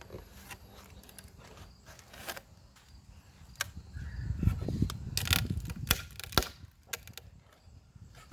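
Crowbar prying nailed wooden crossbars off a 4x4 post: scattered knocks and clicks of metal on wood, with a louder, rougher stretch of straining and cracking wood about halfway through.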